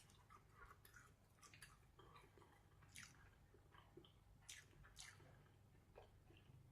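Near silence with faint, scattered soft clicks of quiet chewing.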